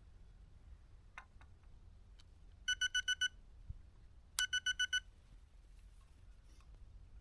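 Electronic fishing bite alarm beeping: two quick runs of about five or six high beeps, a little over a second apart, the alarm registering movement on the line from a fish at the bait.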